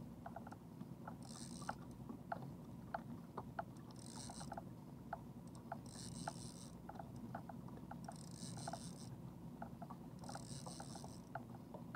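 Small fishing boat under way while trolling: a steady low drone with scattered light ticks, and a short hiss that comes back about every two seconds.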